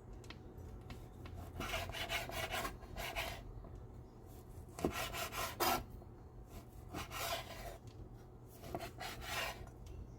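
A kitchen utensil scraping in several short bouts of strokes, with a couple of light knocks about halfway through.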